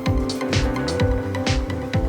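Electronic background music with a steady beat: regular bass kicks with snare and hi-hat hits over sustained synth notes.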